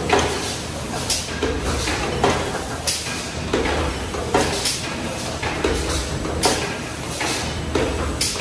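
Automatic aluminium foil container-making press running: a steady low hum with a sharp stroke repeating roughly once a second, somewhat unevenly.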